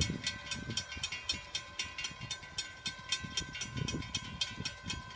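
Railroad crossing warning bell ringing rapidly, about four to five strikes a second, as the crossing activates for an approaching train. A low, gusty rumble runs underneath.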